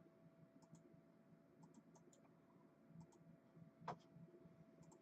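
Near silence with faint scattered clicks over a faint steady hum, one click louder about four seconds in.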